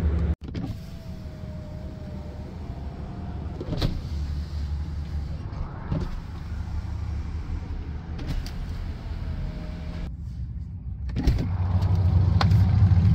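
Tesla Model 3 power window motor whining faintly as the glass moves, in two runs of about three seconds and one second, with short clicks of the door switches, over a steady low hum inside the cabin.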